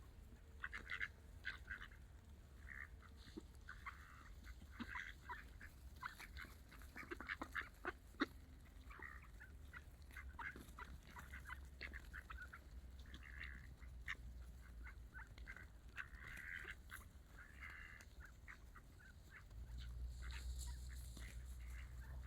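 A flock of ducks calling, many short overlapping calls with scattered sharp clicks, over a low rumble that gets louder near the end.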